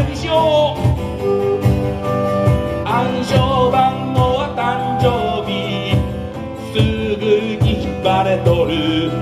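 Live band playing a song: a singer with acoustic guitar and a woodwind over a steady beat of about two strokes a second.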